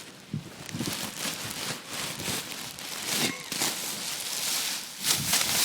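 Dry rustling and crinkling with many small crackles: a handful of dry maple seeds being handled and let go into the wind.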